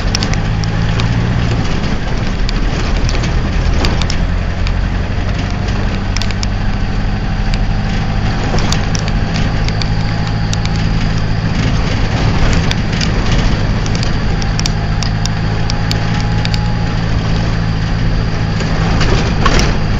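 A motor vehicle's engine running at a steady low hum, with frequent clicks and rattles over it.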